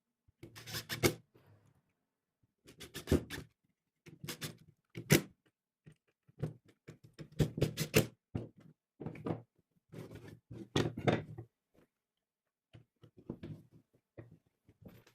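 Irregular knocks and clatter of wooden pieces being handled during hand-tool woodworking, some single sharp knocks and some quick clusters, with short quiet gaps between.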